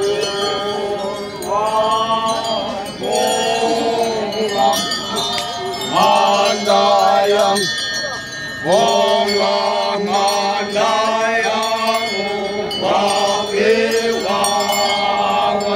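A group of Konyak Naga men chanting in chorus, holding long notes in phrases of a second or two that step up and down in pitch over a steady low drone.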